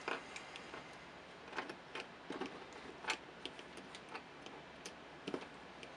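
Scattered light clicks and ticks of a nylon zip tie being threaded through and worked on a small plastic gimbal frame, irregular rather than rhythmic, the loudest about three and five seconds in.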